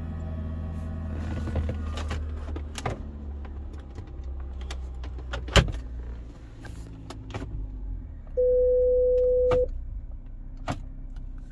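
Scattered clicks of buttons and trim being handled in a Volvo XC70's cabin over a low steady hum. About eight seconds in there is one steady electronic beep lasting just over a second, the loudest sound.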